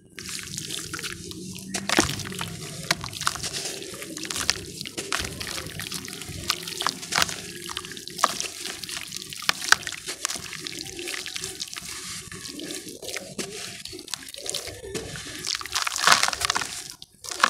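A lump of dry, powdery ash crushed and crumbled by hand, crackling as it breaks apart and falling into a basin of water.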